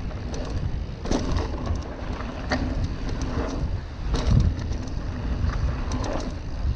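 Mountain bike ridden fast down a dirt jump trail, heard from a GoPro on the rider: a steady rumble of wind and tyres on the dirt, with clattering knocks from the bike over bumps about one, two and a half and four seconds in, the loudest near four seconds.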